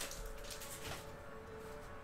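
Foil trading-card pack wrapper crinkling as it is pulled open and off the cards, dying away after about a second.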